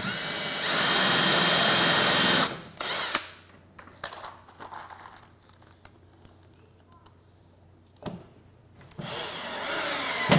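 Cordless drill running at speed to pre-drill a hole into a plywood shelf edge: a steady motor whine for about two and a half seconds, then a brief second run. Near the end a compact cordless driver spins up again, its pitch wavering as it drives a drywall screw into the pre-drilled hole.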